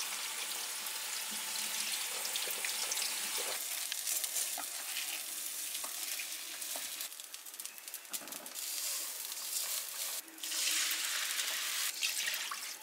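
Rice sizzling as it fries in a hot pot on the stove, with a louder rush of sizzling about ten seconds in.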